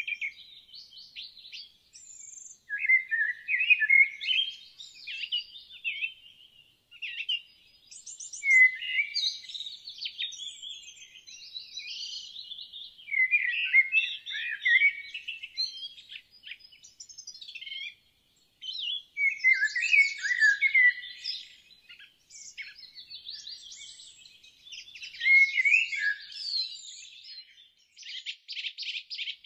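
Songbirds singing: fast, high-pitched chirps and twittering trills in phrases several seconds long, broken by a few short pauses.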